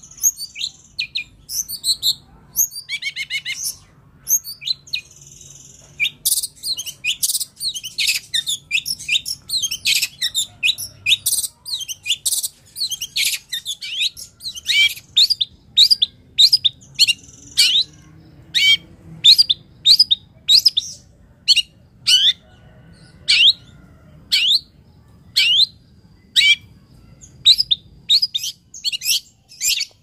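Long-tailed shrike singing loudly: a fast, varied run of sharp high notes through the first half, then a string of single sharp notes, each sweeping quickly downward, about one or two a second.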